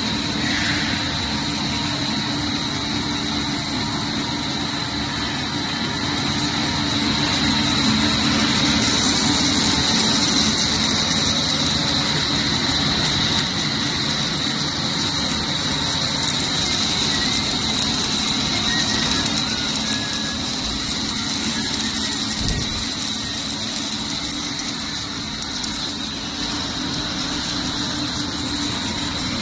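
Corn-snack extrusion line running: steady machine noise with a constant high whine over a low hum, a little louder for several seconds in the middle.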